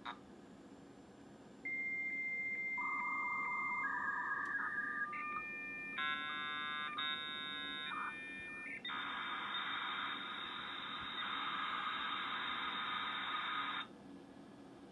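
Dial-up modem handshake for a V.34 call that connects at 9600 baud: a click, then a high steady answer tone with regular small breaks, lower warbling tones, a cluster of several tones at once, and finally about five seconds of hissing noise that cuts off abruptly as the modems go into data mode.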